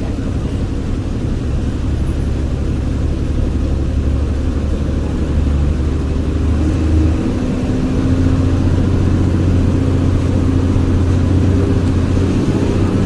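Jaya Guna HG bus engine running under way with a deep, growling 'snoring' note. Its pitch steps up about seven seconds in, and it grows slightly louder toward the end.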